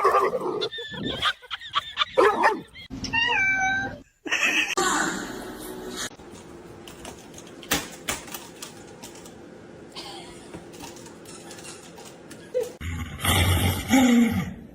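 A cat meowing, among other pet noises.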